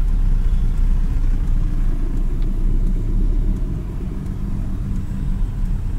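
Steady low rumble of a car driving through city traffic, heard from inside the cabin: engine and road noise.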